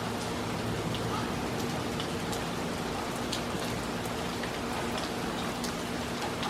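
Steady rain falling, with individual drops ticking sharply close by.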